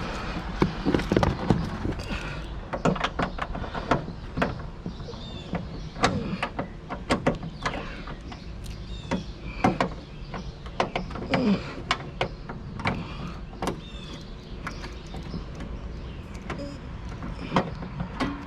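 Irregular clicks, knocks and short squeaks of hand tools and plastic trunk trim being worked while removing a car's trunk latch.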